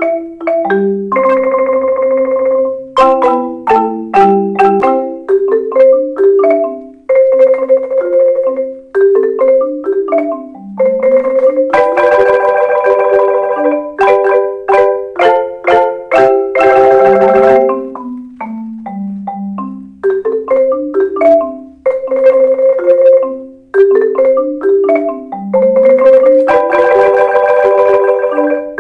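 Several layered marimba parts playing a pop-rock song arrangement together: struck melody notes and a walking bass line under long held chords sustained by mallet rolls.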